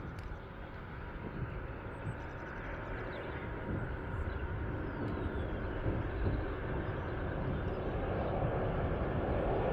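Jet engines of an RAF Voyager (Airbus A330 tanker) on final approach, a steady rumbling whoosh growing louder as the aircraft comes closer.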